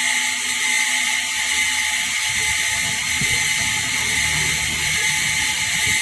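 MIG welder's wire feed motor running steadily, pushing the welding wire through the newly fitted torch, with a constant hiss and hum.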